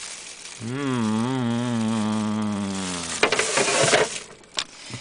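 A person hums a long, buzzy "mmm" whose pitch wavers up and down for about two and a half seconds. It is followed by rustling and handling noise and a few sharp clicks near the end.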